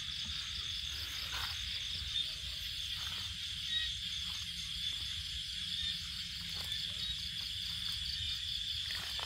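Crickets trilling steadily in a continuous high chorus, with a second, evenly pulsing insect call above it.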